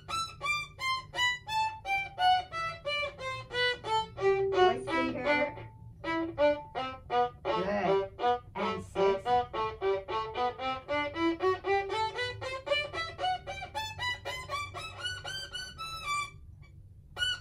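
A violin playing a three-octave G major scale note by note: it runs down, then climbs evenly from the low G through three octaves and starts back down before stopping.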